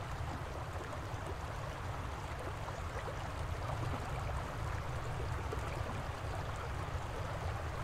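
Steady shoreline ambience: a low rumble under an even, water-like hiss, with no distinct bird calls standing out.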